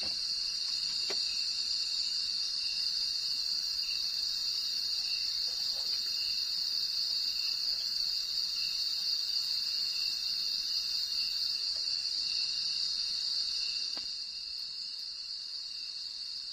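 Night-time chorus of crickets and other insects: a dense steady high trill with a softer pulsing note beneath it, easing slightly near the end. A couple of faint clicks sound over it.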